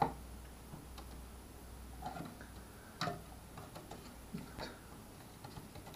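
Scattered light clicks and knocks of a plastic radio case and its parts being handled and fitted together, a sharp click right at the start and another about three seconds in.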